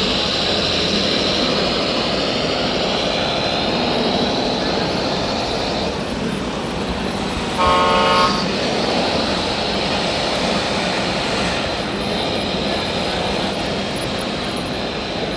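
A horn toots once, briefly, about halfway through, one held note rich in overtones, over steady mechanical running noise. A high whine in the background slowly drops in pitch and fades out about six seconds in.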